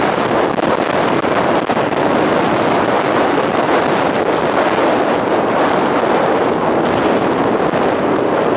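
Strong tornado winds blowing hard against the microphone, a loud, steady rush of noise with no break.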